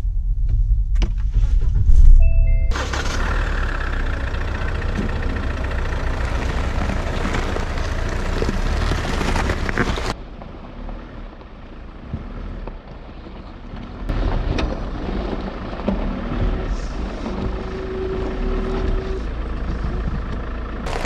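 SsangYong Rexton Sports pickup's diesel engine started by push button: a low rumble as it fires, a short electronic chime about two and a half seconds in, then the engine running steadily.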